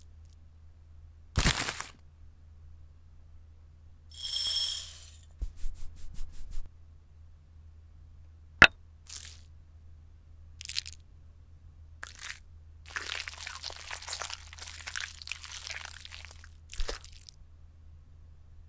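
Cooking sound effects for a stop-motion scene: scattered separate clicks and taps, a short hiss about four seconds in, and a crunching rattle from about thirteen to sixteen seconds in.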